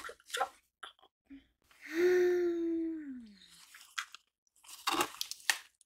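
Crinkling and clicking of a small boxed hard drive and its packaging being turned over in the hands, with a woman's long wordless vocal sound, held and then falling in pitch, about two seconds in; a burst of denser crinkling follows near the end.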